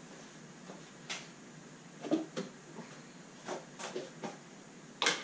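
Objects being moved about on garage shelving, heard as a series of scattered knocks and clatters, the sharpest about five seconds in.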